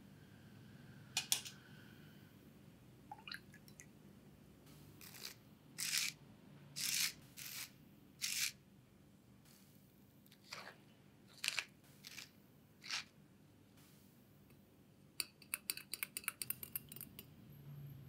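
Pepper mill grinding over a bowl in a series of short scraping bursts, followed by a quick run of small clicks near the end.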